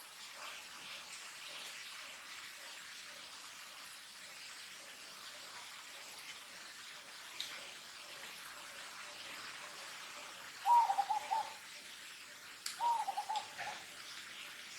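Two short, wavering cooing calls, each under a second, about two seconds apart near the end, over a steady faint hiss of insects.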